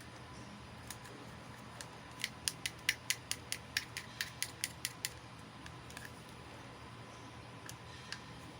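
A quick run of about fourteen sharp little clicks, roughly five a second, from small plastic miniature toy pieces being handled or snapped, with a few single clicks before and after.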